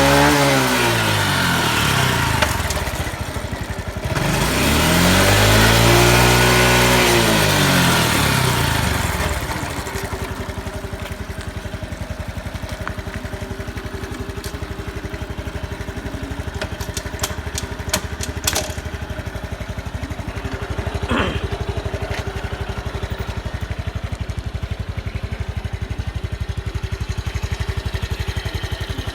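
Honda Super Cub 110 PRO's single-cylinder four-stroke engine revved up and let back down twice, then settling into a steady idle. A few light clicks come a little past halfway. The engine is running well with no abnormal noises, as the seller describes it.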